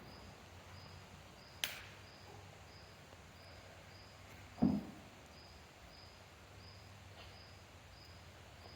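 A sharp click, then about three seconds later a louder dull knock, from small hydraulic fittings being handled. Underneath, a faint high chirp repeats about twice a second over a low steady hum.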